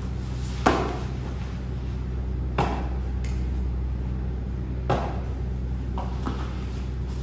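Bodies and hands of two grapplers thumping and slapping on interlocking foam mats, a few separate hits about two seconds apart, over a steady low hum.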